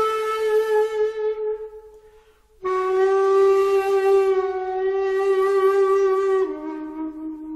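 Slow solo flute music with a breathy tone. A long held note fades away, then after a short gap a new note is held for several seconds and steps down to a lower note that fades out near the end.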